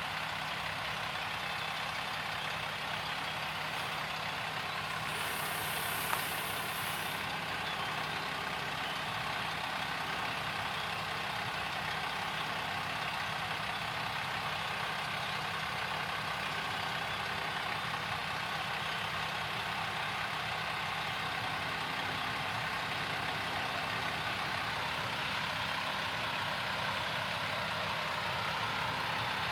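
John Deere S680 combine harvesting corn, its diesel engine and threshing machinery running steadily. A short hiss comes about six seconds in.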